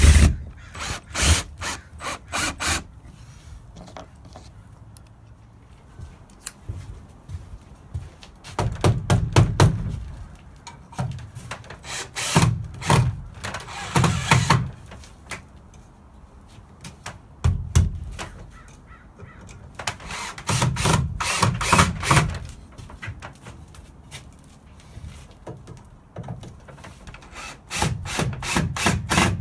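Cordless drill/driver driving long screws into 2x4 framing lumber, in about six bursts of a few seconds each with pauses between.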